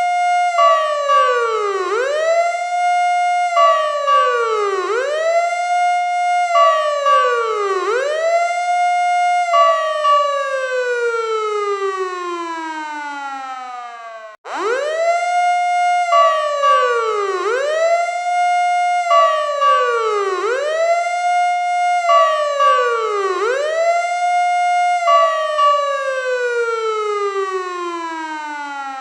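Fire truck siren wailing up and down in quick cycles, about one every one and a half seconds, then sliding down in one long fall. It cuts off sharply about halfway through, and the same pattern starts over.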